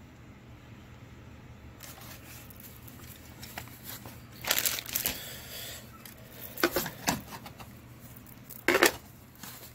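Handling noise from a plastic V-mount battery charger and its packaging: rustling and crinkling about halfway through, then a few light clicks, and a sharp clack near the end as a V-mount battery is snapped onto the charger's mount plate.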